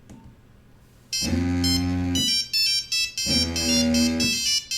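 Mobile phone ringtone playing: a buzzy electronic melody of short beeping notes that starts about a second in and runs in two main phrases with brief gaps.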